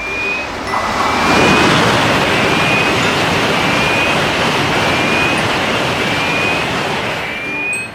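A train rushing past a railroad crossing: a loud rushing noise swells about a second in, holds, and fades near the end. Meanwhile the crossing alarm keeps sounding in a steady repeated pattern.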